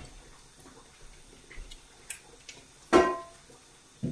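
Glass blender jar and utensil knocking against a stainless steel pot while ground red chilli paste is scraped out into it: a few light ticks, then one sharp ringing clink about three seconds in and a short knock at the very end.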